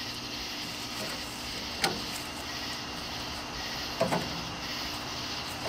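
Metal tongs clicking against a steel mesh grill grate as corn cobs are shifted, two sharp clicks about two seconds in and about four seconds in, over a steady low background noise.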